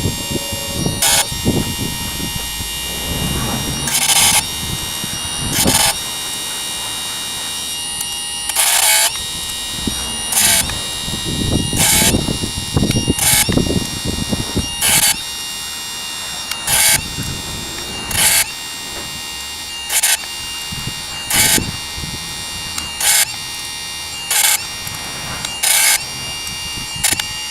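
Electric chainsaw sharpener running with a steady high whine, its grinding wheel brought down onto the chain tooth after tooth: a short rasping grind about every one and a half seconds. The motor cuts off near the end.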